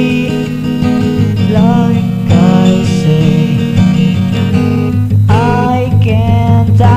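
Music: a song with acoustic guitar strumming and a melody line of long held notes that glide between pitches.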